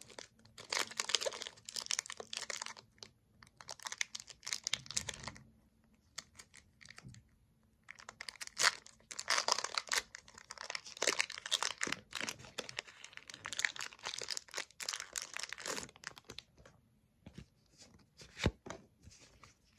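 Foil wrapper of a Pokémon card booster pack being torn open and crinkled, in crackly bursts with short pauses between them.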